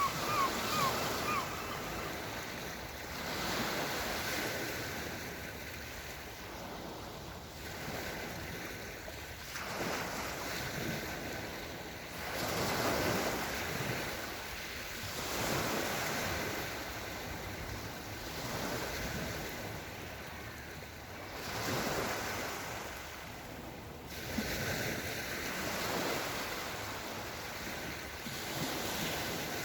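Small Black Sea waves washing onto the shore, the surf swelling and falling away every two to three seconds.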